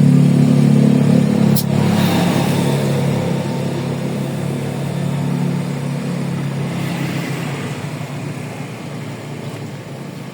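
A motor vehicle engine running with a steady low hum, growing gradually fainter. There is a single sharp click about one and a half seconds in.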